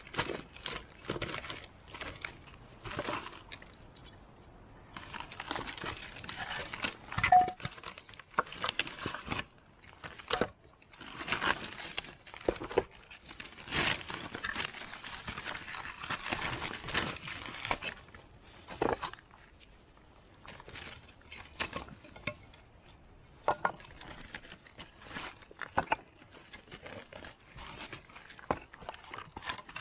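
Irregular rustling, crinkling and clicking of things being handled, thickest in a long stretch of steady rustling in the middle.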